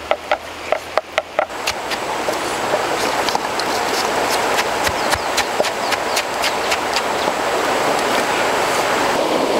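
Wooden pestle pounding chillies and garlic in a wooden mortar. It starts with a run of sharp knocks, about four or five a second, over the first second and a half, then goes on as quicker, lighter taps over a steady rushing noise that slowly grows louder.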